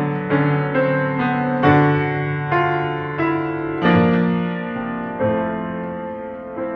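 Piano music: slow chords, each struck about once a second and left to ring and fade.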